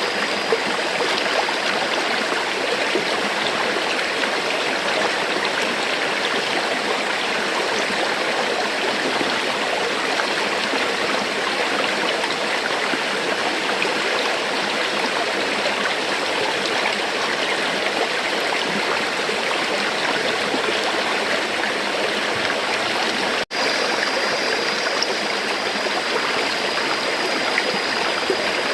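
River water flowing over rocks, a steady rushing and gurgling. It cuts out for an instant about 23 seconds in, then carries on unchanged.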